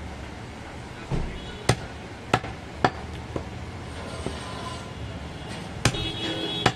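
A large butcher's knife chopping goat meat on a wooden log chopping block: a series of sharp, uneven strikes, about five loud ones with lighter taps between.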